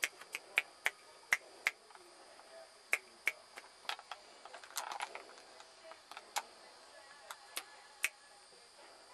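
A dozen or more sharp clicks and ticks at irregular spacing, some loud, with a short rustle about five seconds in.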